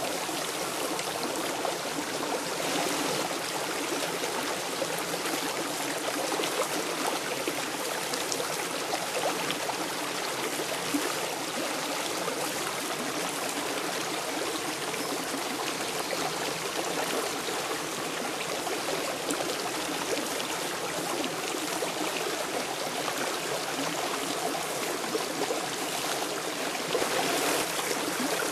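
Shallow rocky stream flowing over stones and small riffles: a steady rush of water, a little louder near the end.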